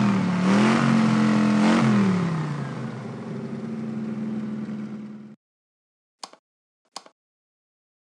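A car engine revving up twice, then dropping back to a steady idle before cutting off suddenly about five seconds in. Two short clicks follow near the end.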